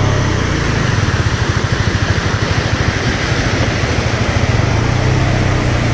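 Motorcycle engine running at low revs with a steady pulsing beat, the bike crawling over a rough, wet, rocky track.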